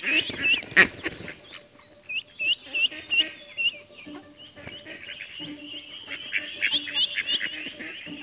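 Mallard ducklings peeping: short high peeps in quick runs, with a sharp click about a second in.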